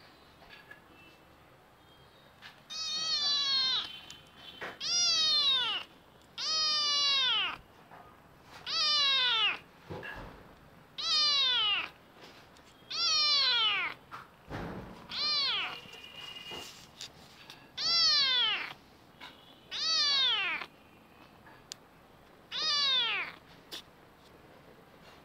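Ginger kitten meowing about ten times, one call every two seconds or so, each call about a second long and falling in pitch.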